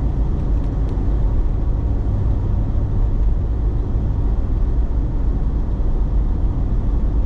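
Steady road noise and engine rumble heard inside a moving car's cabin.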